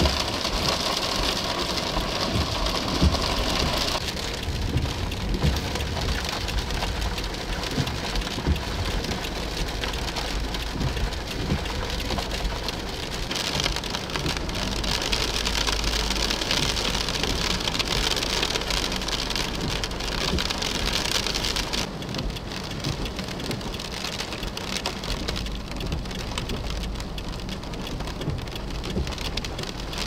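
Steady rain falling, with a low rumble underneath; the tone of the rain changes abruptly a few times.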